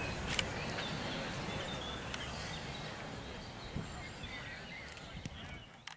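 Open-air ambience with scattered bird chirps and a few faint clicks over a low, even background noise, fading out at the end.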